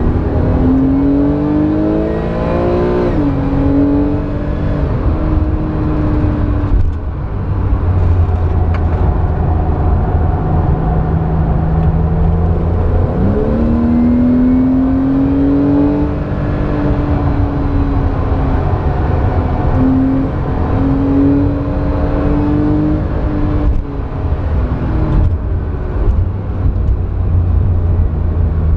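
Porsche 911's flat-six engine heard from inside the cabin at racing speed, with road and wind noise. Its pitch climbs through the revs in the first few seconds, drops, holds lower, then climbs again about halfway through before easing off and dipping near the end.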